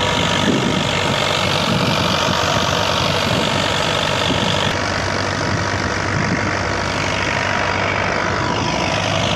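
Tractor engine and the threshing machine it drives, running steadily under load: a loud, continuous mechanical drone.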